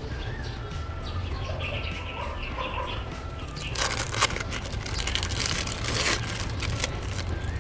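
Clear plastic wrapper crinkling as it is peeled off an individually wrapped processed cheese slice, a crackly rustle about four seconds in that lasts some two seconds, over a steady low hum and faint high chirps.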